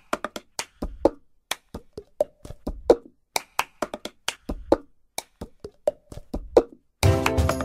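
Unaccompanied cup-game rhythm of hand claps, slaps and a plastic cup knocked on a table, opening a pop song. A full backing band comes in near the end.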